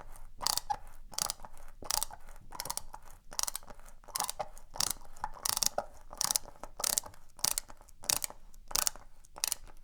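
Screwdriver driving a screw into a wall by hand: a steady run of scraping, clicking turns, about two strokes a second, that stops abruptly near the end.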